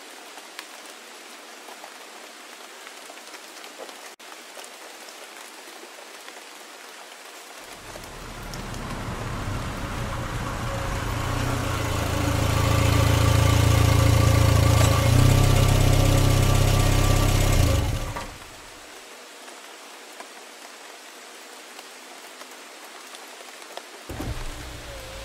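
Steady rain falling, used as a skit sound effect. About a third of the way in, a low rumble with a steady hum swells for about ten seconds, becomes the loudest sound, and stops abruptly. The rain then carries on.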